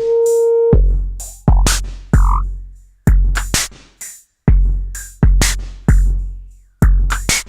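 Electronic drum machine beat: deep kick drum hits with crisp hi-hats in a syncopated pattern, roughly one or two hits a second. A held synth note stops just under a second in, leaving the drums alone.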